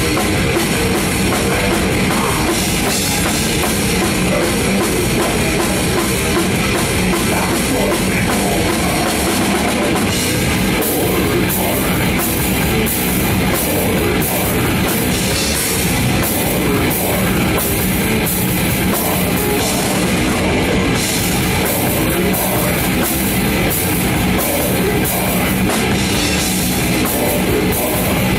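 Death metal band playing live, heard from a drum cam right at the kit, the drum kit loud and up front. From about eleven seconds in, hits high in the kit's sound come on a steady pulse about twice a second.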